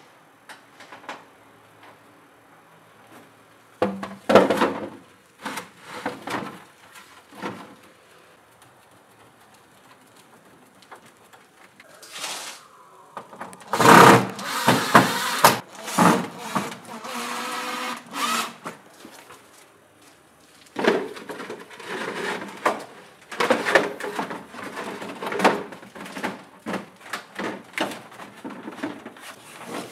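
Corrugated roofing sheets being handled and fitted onto a small wooden roof: intermittent rattling, scraping and clatter of the thin sheets, loudest about halfway through, with a brief falling whine just before that.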